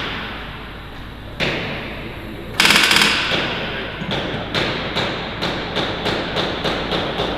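Pneumatic rivet gun working on aircraft metal: a single knock, then a loud rapid rattling burst about two and a half seconds in, followed by a run of separate sharp knocks about two to three a second.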